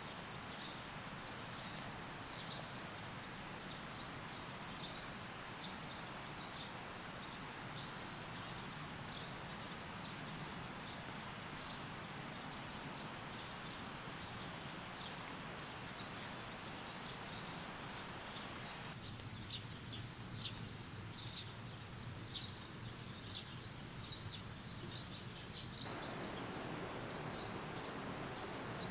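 Steady rush of creek water under a continuous high-pitched insect drone, with many short high chirps throughout. For several seconds near the end the water rush drops away, leaving the chirps and the insect drone clearer.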